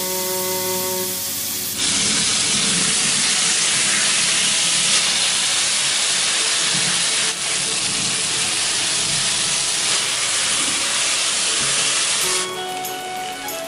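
Marinated raw jackfruit pieces shallow-frying in hot oil in a pan: a loud, steady sizzle that starts suddenly about two seconds in and cuts off about a second before the end.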